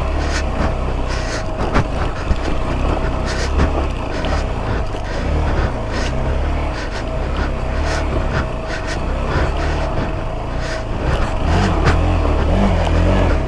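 A motor vehicle's engine working on a rocky off-road track, a deep uneven rumble with scattered sharp clicks and knocks.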